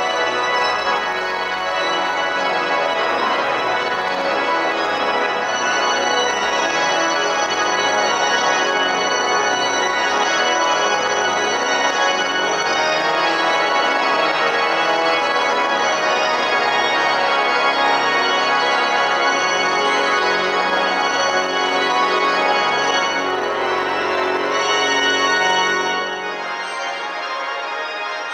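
Pipe organ playing dense, sustained chords. About two seconds before the end it drops to a quieter, softer passage.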